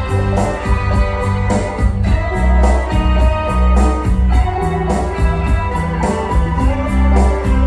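Instrumental passage of a Spanish-language pop-rock song: guitar and organ over a heavy bass line and a steady drum beat.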